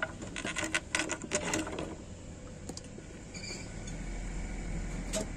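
Light metallic clinks and knocks of tools and steel parts being handled, bunched in the first two seconds, then a quieter steady background.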